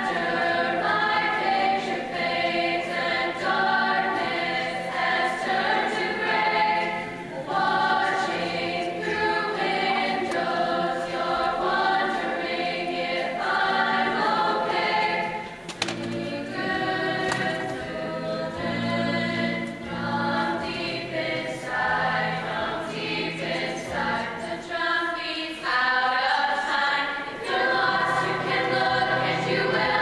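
Mixed-voice high-school show choir singing, with a brief pause about halfway through.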